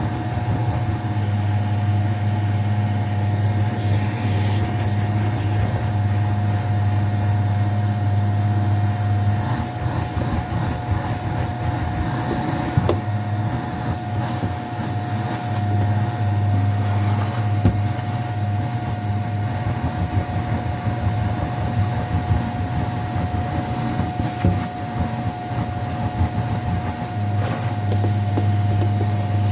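Vacuum cleaner running over shag carpet: a steady motor hum with a constant whine. Through the middle stretch the hum turns uneven, with a couple of sharp knocks, as the head is worked over the carpet, and it steadies again near the end.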